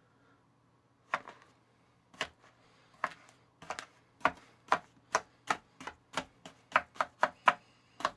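Blue plastic sand-cutter tool chopping down through a loaf of moldable play sand onto a cutting board: sharp taps, a few spaced out at first, then quickening to two or three a second.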